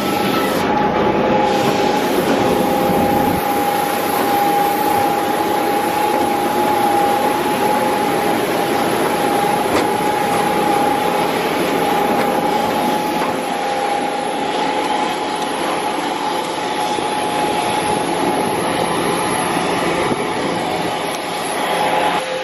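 A parked jet airliner running on the apron: a steady high whine over a loud, even rushing noise, unchanging throughout.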